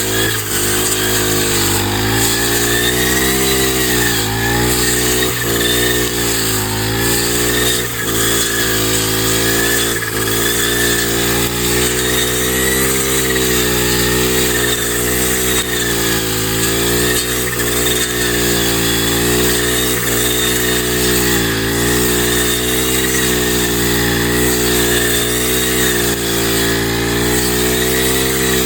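Kamassu G435T four-stroke brush cutter engine running at high speed with a metal blade fitted. Its pitch sags and recovers every second or two as the blade takes the load of cutting grass.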